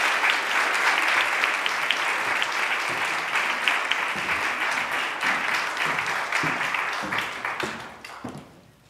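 Audience applauding, a dense patter of many hands clapping that thins and dies away about a second before the end.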